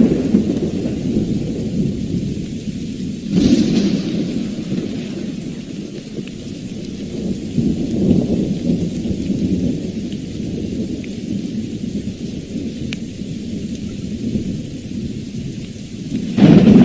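Thunderstorm: steady rain with continuous rumbling thunder. A sharp thunderclap hits about three seconds in, and another loud clap comes near the end.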